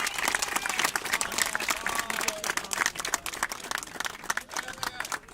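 A crowd clapping and applauding, a dense patter of many hands that thins out and fades toward the end.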